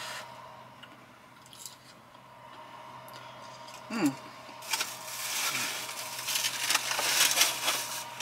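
Crinkly rustling and crackling of takeout food packaging, getting louder from about five seconds in, with a brief falling hum about four seconds in.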